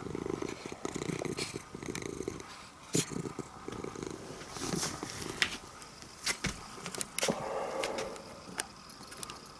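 Orange-and-white domestic cat purring close to the microphone, strongest in the first couple of seconds, with several sharp clicks and a short rustle over it.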